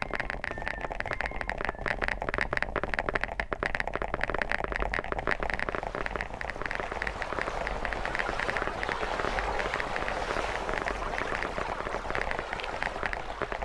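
Fast, continuous typing on a chiclet-style ("chocolate") keyboard: a dense stream of key clicks.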